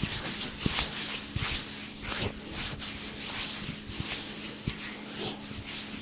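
Hands rubbing in quick repeated massage strokes, about three to four a second, close to the microphone. A steady low hum runs underneath.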